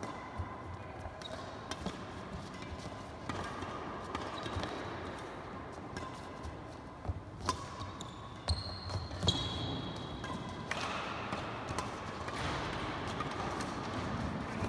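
Badminton rally on an indoor wooden court: rackets striking the shuttlecock with sharp smacks, the strongest a little past the middle, along with footsteps and short high shoe squeaks on the floor, echoing in the hall.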